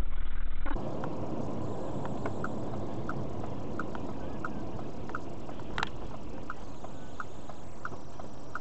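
Steady road and engine noise inside a moving car's cabin, with a turn-signal indicator ticking about twice a second and one sharp click about six seconds in. Under a second in, a louder, duller low rumble cuts off abruptly.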